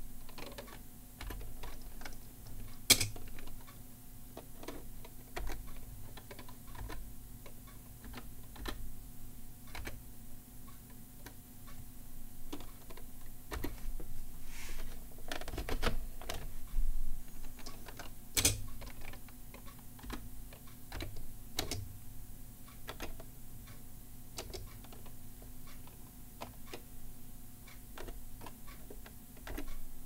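Slow, halting typing on a SafeType vertical split keyboard: single key presses clicking at irregular intervals, often a second or more apart, with two sharper, louder clacks standing out.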